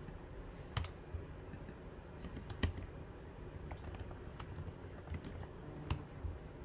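Computer keyboard typing and clicks: a scattering of irregular, faint taps.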